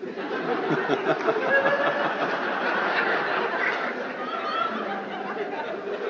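An audience laughing together: the laughter breaks out at once, holds for a few seconds and slowly eases off.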